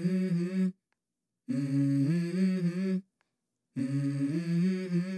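Wordless humming of a slow melody in three short phrases, each holding and stepping between a few low notes, with dead silence between the phrases.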